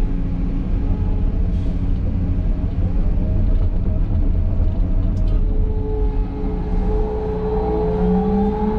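Liebherr R926 crawler excavator's diesel engine and hydraulics running steadily, heard from inside the cab. A steady higher tone joins in about halfway through.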